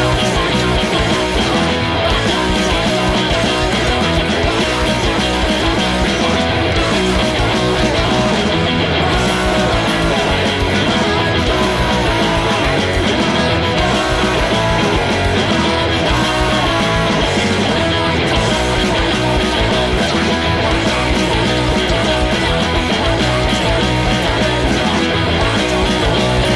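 Loud, continuous rock music led by guitar, in a punk rock style.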